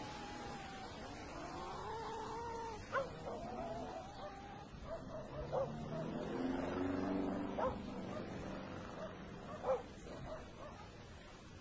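A dog whining in drawn-out, rising and falling cries, with four short sharp barks spaced about two seconds apart.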